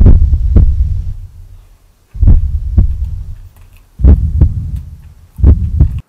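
Heartbeat sound effect: four deep double thumps, lub-dub, the beats coming about two seconds apart and slightly quicker toward the end.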